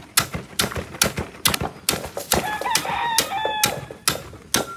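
Hatchet blows chopping through the hard scaly back of a gar, about a dozen sharp knocks at roughly two or three a second. A rooster crows in the background a little past the middle.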